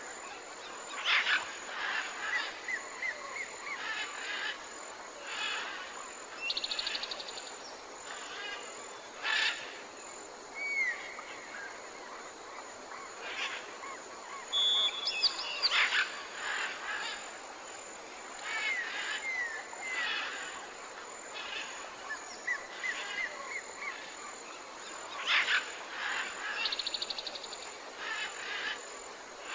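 Tropical forest birds calling over a steady background hiss: a mix of short rising whistles, repeated chirps, and brief rapid trills from several birds.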